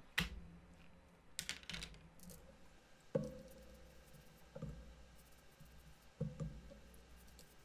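Faint scattered taps and knocks, about half a dozen over several seconds, from a glass glue bottle and tools being picked up and set about on a craft cutting mat.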